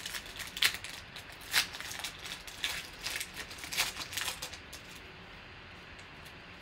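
Foil wrapper of a Panini Optic basketball card pack crinkling and tearing as it is ripped open by hand: a run of sharp, irregular crackles that dies down about five seconds in.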